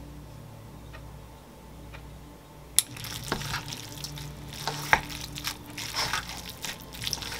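Wooden chopsticks tossing black-bean-sauce instant noodles and a broken fried egg in a bowl: wet, sticky squelching with occasional sharp clicks of the chopsticks, starting about three seconds in.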